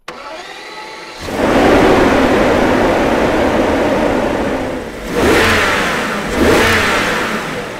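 A car engine running, much louder from about a second in, then revved twice in the second half.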